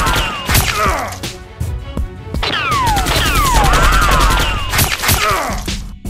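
Rapid-fire gunshot sound effects in two long bursts with a short pause between, laid over a foam-dart blaster's firing. Falling whistling tones sweep down over each burst, and background music plays under it.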